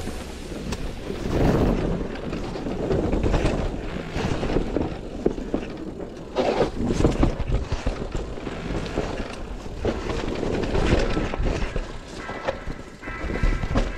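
Mountain bike riding fast down a dirt forest trail: tyres rumbling over dirt and roots, with irregular knocks and rattles from the bike over bumps and wind on the microphone. Music comes in faintly near the end.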